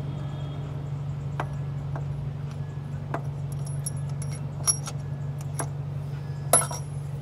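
Sparse sharp metallic clinks of hand tools on metal as the A/C compressor is unbolted, one louder than the rest near the end, over a steady low hum.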